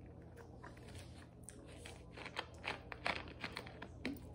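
A run of irregular sharp clicks and crackles of a plastic soda bottle being handled, ending as its screw cap is twisted open.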